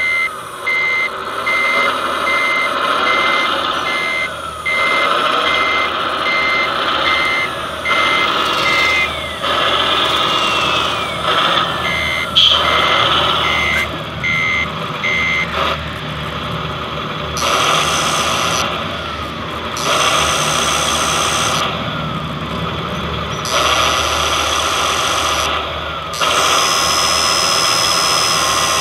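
ScaleART MAN TGS 8x8 RC truck's sound module running a diesel truck engine with a steady beat of reversing beeps for the first half. After that, the beeps stop and the model's hydraulic pump runs in several spurts as the hook-lift arm rises, with a steady whine near the end.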